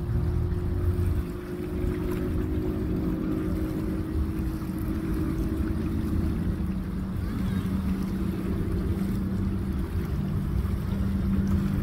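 Motorboat engine humming steadily out on the water, with small waves lapping at a sandy shore.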